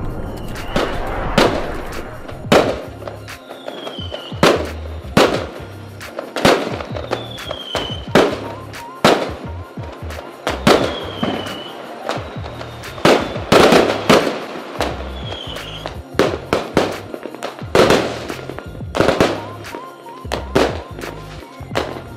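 Aerial fireworks shells bursting in a rapid series of sharp bangs, one or two a second, over background music with a steady bass line.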